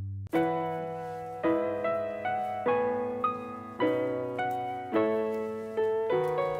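Background piano music: a gentle melody of struck notes and chords, each ringing and fading before the next, about one or two a second.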